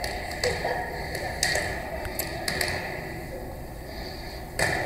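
Sharp slaps of a volleyball being struck by hands during play, several single hits a second or so apart, with the loudest near the end.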